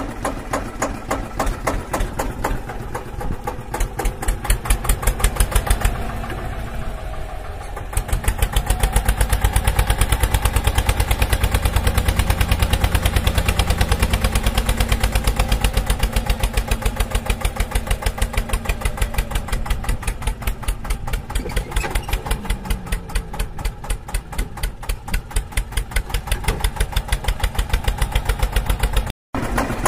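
Small engine of a DIY mini tractor chugging steadily in a rapid, even beat. It gets louder and deeper about eight seconds in and cuts out for an instant just before the end.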